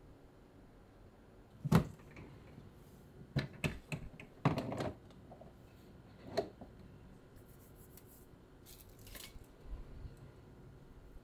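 A handful of sharp knocks and clatters as a storage cabinet is opened and the things inside are handled, spread over the first seven seconds, followed by a softer rustle.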